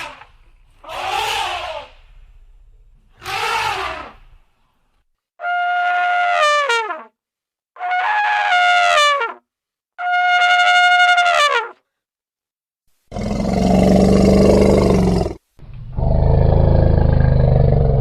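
Elephant calling in a series: two short calls, then three trumpet blasts about two seconds apart, each held steady and falling in pitch at its end, then two long, low, rough roars.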